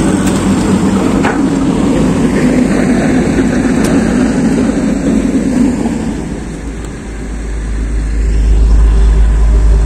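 Diesel engines of Komatsu PC200 long-arm excavators running steadily with a low engine hum. A deep low rumble grows louder over the last few seconds.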